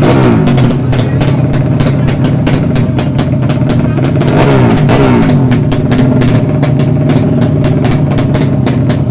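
Motorcycle engine running hard and loud, its pitch dropping in the first second, then climbing and falling again about four to five seconds in as the revs change.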